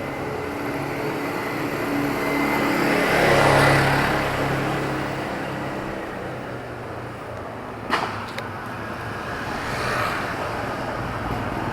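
Town street traffic: a motor vehicle's engine passes by, loudest about three and a half seconds in and then fading. A sharp knock comes about eight seconds in, with a lighter one just after it, and another vehicle draws near toward the end.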